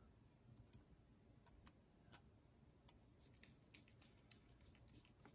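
Near silence broken by a scattering of faint small clicks and ticks, the loudest about two seconds in, as the Loctited pivot screw of a folding knife is driven back in with a small screwdriver.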